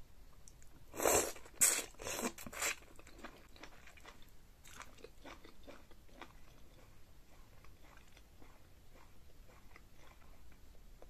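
Close-miked eating: four loud crunchy bites into sauce-coated corn kernels between about one and three seconds in, then quieter chewing with soft wet mouth clicks.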